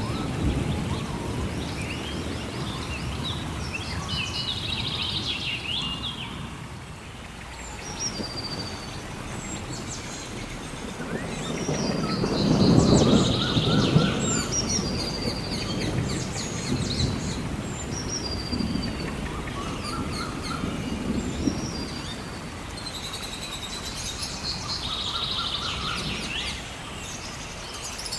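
Rainforest ambience: many birds calling in short whistles and chirps over a steady hiss of rain, with a low thunder rumble swelling to its loudest about twelve seconds in.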